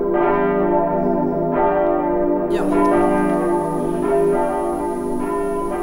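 Church bells ringing, a fresh stroke about every second to second and a half, each one ringing on into the next.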